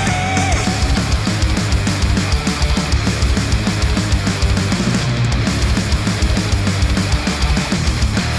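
Loud, dense rock music with guitars and a fast, steady drum beat, played through studio headphones and picked up by microphones at the earcups.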